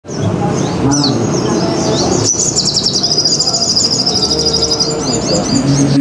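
Olive-backed sunbird (sogon) singing: a few sharp, high chirps, then a fast trill held for about two and a half seconds, over low background voices.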